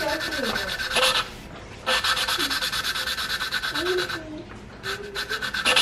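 A valve being hand-lapped into its seat in an aluminium cylinder head: a lapping stick is spun back and forth between the palms, and the valve face grinds against the seat with a rapid, rhythmic rasping. It stops briefly about a second and a half in and again near the end. This is light lapping to seat a new valve in a used head.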